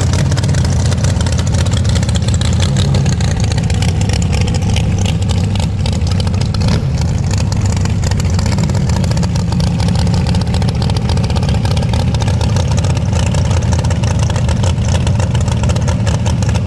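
Rail dragster's engine idling loudly and steadily, a fast, even rumble with no change in pitch.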